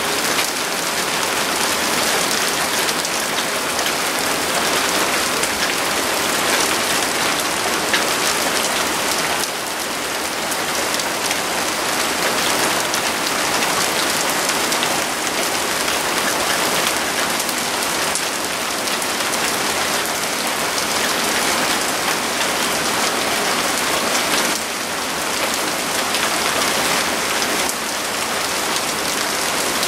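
Heavy downpour of big, fat raindrops: a dense, steady hiss of rain splashing on vehicle roofs, pavement and lawn.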